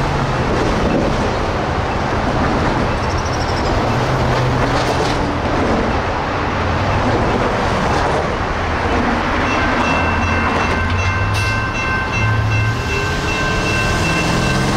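Road traffic passing over a railroad crossing. About ten seconds in, the crossing's warning bell starts ringing steadily as the signals activate for an approaching train.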